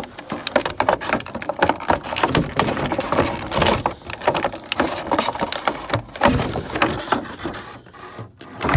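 Stiff clear plastic blister packaging being handled and flexed, crinkling and crackling in a dense run of clicks and rustles, with a louder crackle near the end.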